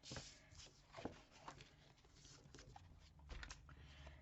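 Faint scraping and light ticks of cardstock being handled and scored with a scoring tool.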